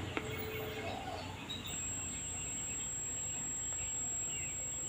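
Panatone CRT TV switching on: a click shortly after the start, then a thin, steady high-pitched whistle from the set begins a little under two seconds in and holds. This is the whistling the owner complains of. Faint bird chirps sound in the background.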